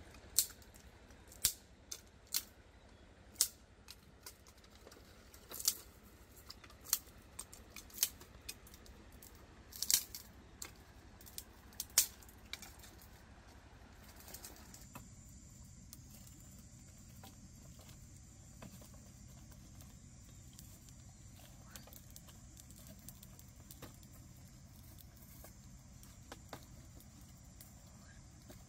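A series of sharp, irregular clacks of small hard objects knocking together over the first half. About halfway it gives way to a quieter steady low hum with a thin high whine.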